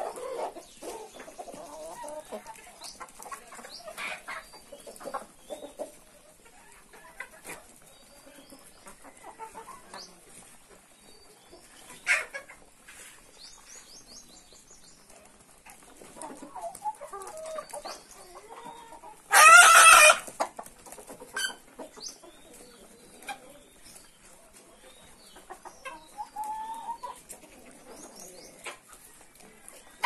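A flock of Kadaknath chickens clucking softly as they forage, with one loud squawk about twenty seconds in.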